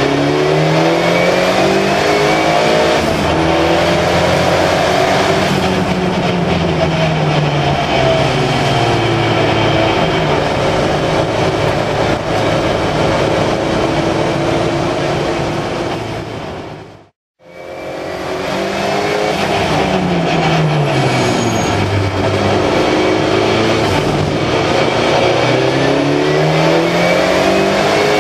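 Engine of a turbocharged Volvo 360 race car heard from inside the cabin at racing pace, running on turned-down boost. Its note climbs and drops again and again as it revs through the gears and slows for corners. The sound fades out to silence for a moment about seventeen seconds in, then comes back.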